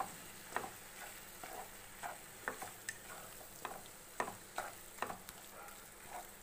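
A spatula stirring and scraping a thick onion-tomato masala of fried onions, ground tomato and spice powders in a nonstick pan, in short irregular strokes about two a second, over a faint frying hiss.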